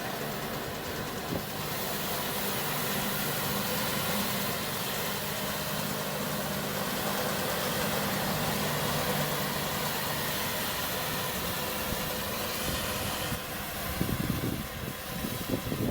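Massey Ferguson 5610 tractor running steadily with its round baler. From about 14 seconds in, gusts of wind buffet the microphone over it.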